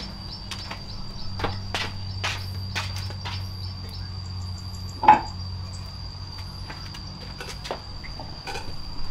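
A steady high insect trill, like a cricket, over a low hum, with irregular knocks and clicks and one louder knock about five seconds in.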